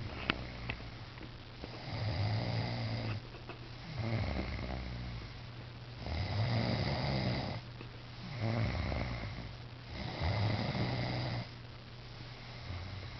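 A person snoring: about five snores roughly two seconds apart, each a second or more long, with a low buzz under a breathy rasp.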